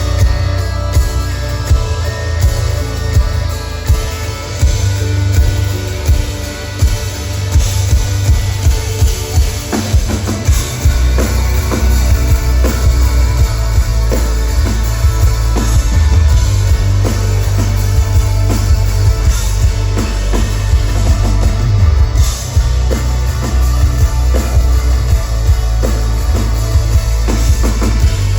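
Live rock band playing an instrumental passage with no vocals: drum kit, guitar and bass. Drum hits are sharp and regular for the first ten seconds or so, then a heavy, sustained bass fills in from about eleven seconds in.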